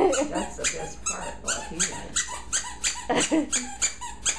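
A plush squeaky dog toy squeaking over and over as a small dog chews it, several short squeaks a second.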